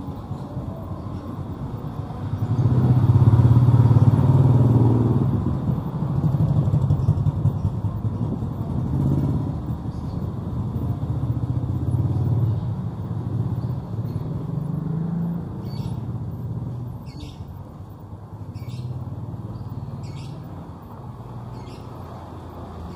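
Motorcycle engines going by on a narrow street. One passes close and loud about three seconds in, and others swell and fade after it.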